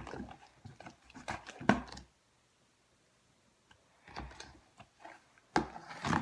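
Wet, sticky squishing of freshly mixed glue-and-detergent slime being worked by hand, in irregular bursts, stopping for about two seconds midway.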